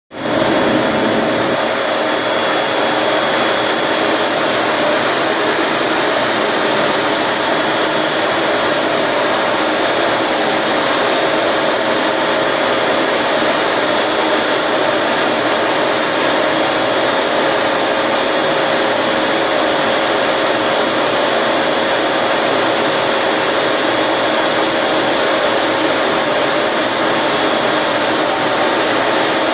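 Vacuum cleaner switching on at the very start and then running steadily, a loud constant rush with a steady whine over it, as it sucks dust and chips off a CNC router table.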